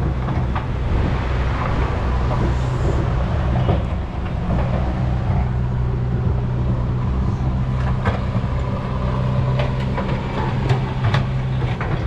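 A motor vehicle engine droning steadily, with road noise over it and a few faint knocks.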